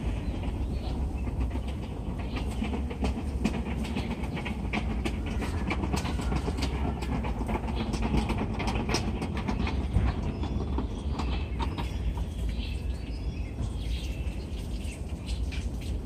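A steady low rumble with constant clattering and clicking, with a few faint bird chirps over it, mostly in the second half.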